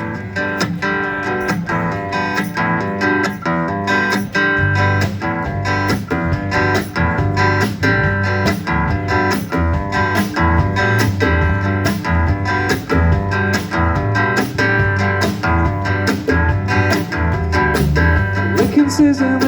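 Instrumental guitar intro of a rock song: strummed guitar over a steady beat, with bass coming in about four and a half seconds in.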